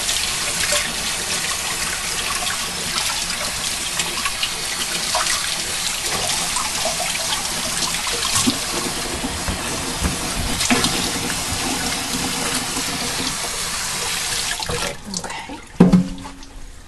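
Kitchen faucet running into the sink while hands are rinsed under it, a steady splashing wash. The water stops near the end, followed by a single loud knock.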